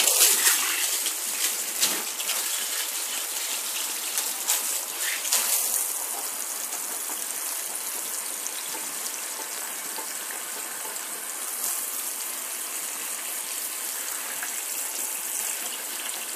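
Salon shampoo-bowl sprayer turned on, water spraying over a lathered scalp and splashing into the sink to rinse out clarifying shampoo. It starts suddenly, splashes loudest for the first few seconds, then settles to a steady rush.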